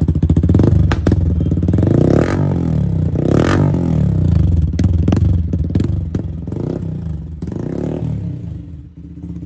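TVS Ronin 225's single-cylinder engine running through a carbon-fibre Yoshimura slip-on exhaust, the throttle blipped again and again so the revs rise and fall. The sound drops off near the end.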